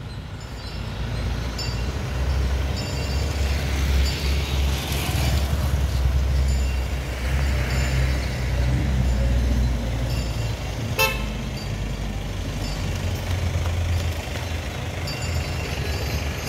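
Road traffic: motorcycles and jeeps passing close by with a steady low engine rumble, short toots of a vehicle horn now and then, and one sharp click about eleven seconds in.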